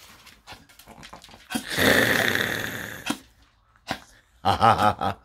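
A French bulldog vocalizing at the table: one rough, noisy sound lasting about a second and a half, starting about a second and a half in and fading as it goes.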